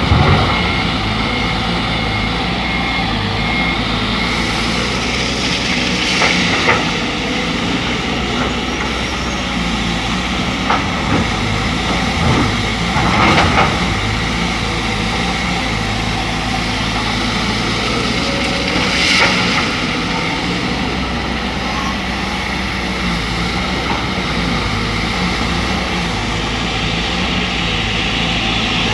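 Excavator's diesel engine running steadily under work, with a few short clanks and scrapes from the digging.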